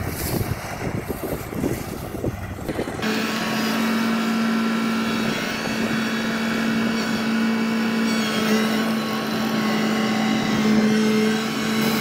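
Wind buffeting the microphone for about three seconds, then a Kubota Harvesking combine harvester running close by as it cuts rice: a steady engine hum with several steady higher tones from the machine.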